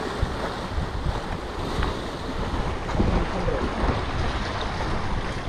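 Wind buffeting the microphone over the wash of sea waves against a breakwater, a steady low rumbling rush.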